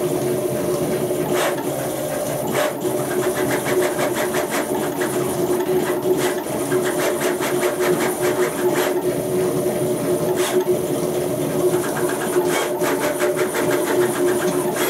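Stepper motors of a CNC router converted to a 3D printer running through a print, with a steady motor whine and stretches of rapid ticking as the moves change.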